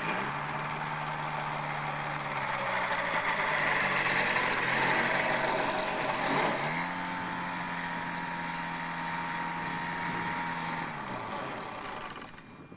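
Pegasus Cyclone AX2000 microlight's engine and pusher propeller running as the aircraft taxis on grass. The engine note is steady with a couple of brief pitch changes, loudest in the middle, then drops in pitch and fades near the end.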